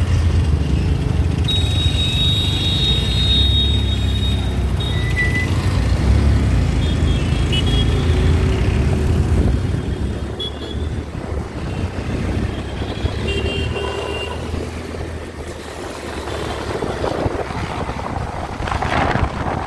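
City road traffic heard from the back of a moving motorbike: a low engine and road rumble, with vehicle horns tooting several times. The rumble eases off after about ten seconds.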